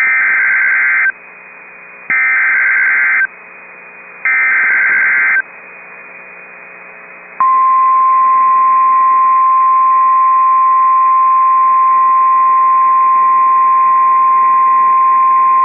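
Emergency Alert System SAME header: three data bursts of about a second each, a warbling digital chirp, sent about a second apart over radio hiss. About seven seconds in, the steady 1050 Hz NOAA Weather Radio warning alert tone starts and holds. Together they mark the start of a tornado warning broadcast.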